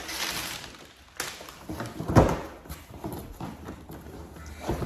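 A few knocks and thumps with rustling from a package being handled, the loudest knock about two seconds in.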